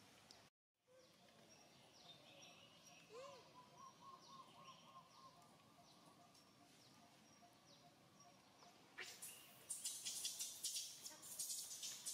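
Faint outdoor ambience with small birds calling over and over in the background. From about nine seconds in comes a louder, scratchy, crackling noise.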